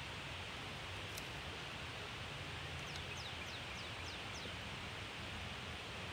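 Steady outdoor background hiss, with a small bird giving a quick run of about five high, downward-sliding chirps a little after halfway.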